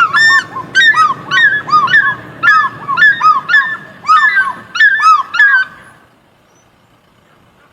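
Loud, repeated honking bird calls, about two a second, at two alternating pitches, ending about six seconds in.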